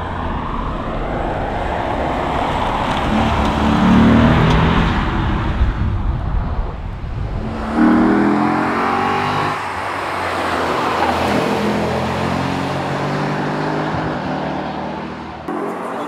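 Lexus IS F's 5.0-litre V8 revving hard as the car drives past, in two separate passes, its pitch climbing under acceleration and falling back between gears. Near the end it gives way to quieter outdoor noise.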